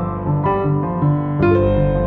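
Background music led by piano: a melody of changing notes over a repeating bass line.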